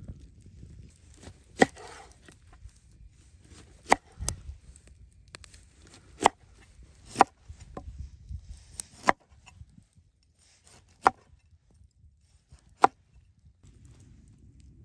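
Broad-bladed knife chopping a corn cob into rounds on a wooden cutting board: about eight sharp knocks, spaced one to two seconds apart and irregular, with the chopping stopping a couple of seconds before the end.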